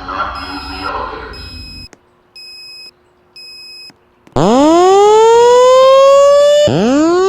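Fire alarm voice-evacuation speaker: the end of a spoken announcement with short high beeps over it, then two more beeps, then the loud whoop evacuation tone. Each whoop rises in pitch over about two seconds; the second starts near the end.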